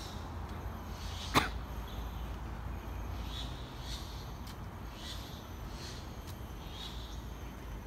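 Footsteps scuffing along a paved path at a walking pace, over a steady low outdoor rumble, with one sharp click about a second and a half in.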